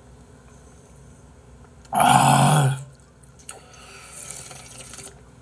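A person drinking ramyeon broth straight from a bowl, with one loud slurp about two seconds in that lasts under a second.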